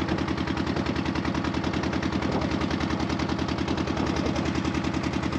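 Motor boat's engine running steadily, a rapid, even chugging beat.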